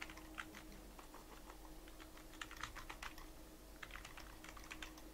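Faint typing on a computer keyboard, in short runs of quick keystrokes with pauses between them, over a low steady electrical hum.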